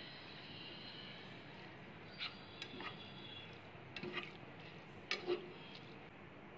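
Slotted spatula knocking and scraping against a pan while tossing pasta: a scattering of sharp clicks, the loudest about five seconds in, over a faint steady hiss.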